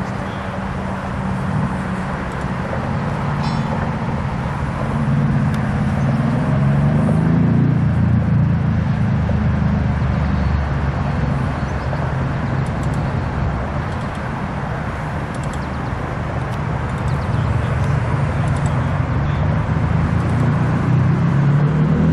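A motor engine running steadily with a low drone, its pitch shifting mid-way and rising as it revs near the end.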